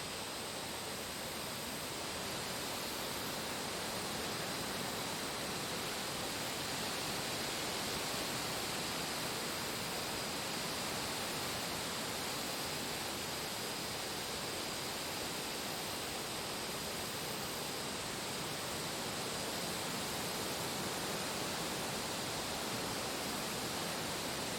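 Wind blowing steadily through forest trees: an even, unbroken rushing hiss.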